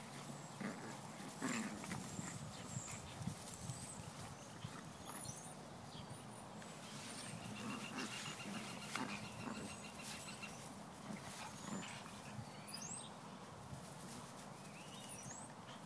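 Several Chihuahuas growling low and scuffling as they pull against each other in a tug of war over a toy.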